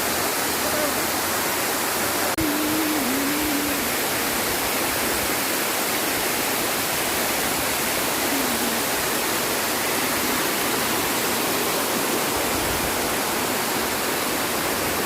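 Waterfall pouring, a steady loud rush of falling water with a brief break about two seconds in.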